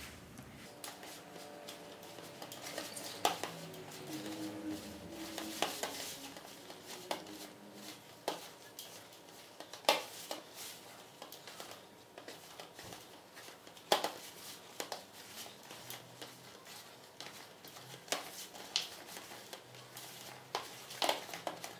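Hands mixing and kneading a soft flour dough in a plastic basin: quiet handling noise with scattered taps and knocks against the bowl, the sharpest about ten and fourteen seconds in.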